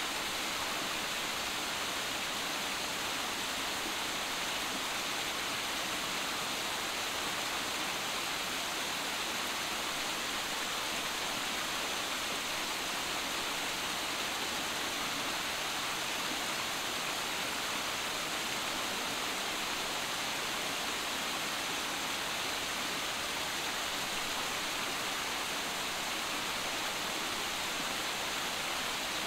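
Small waterfall tumbling over boulders into a rocky stream, a steady, even rush of water with no change.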